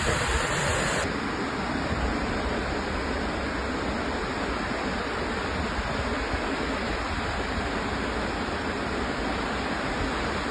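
Waterfall: a steady rush of falling water. About a second in, the sound changes abruptly and loses some of its high hiss.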